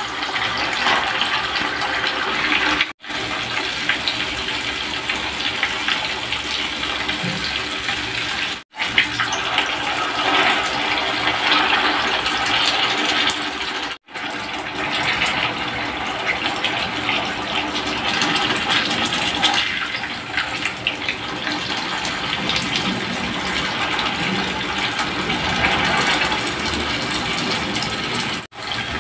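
Tofu slabs frying in hot oil in an electric nonstick frying pan: a steady, dense sizzle and crackle of bubbling oil. It breaks off to silence for a split second four times.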